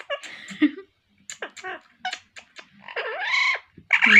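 Pet parrot making short clicks and chatter, then a longer squawk that rises and falls about three seconds in.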